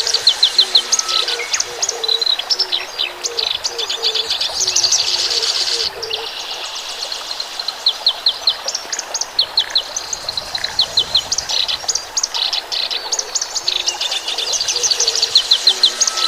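Several birds chirping and singing together, with quick runs of high, sharp chirps and trills overlapping throughout, and a softer, lower call repeating underneath.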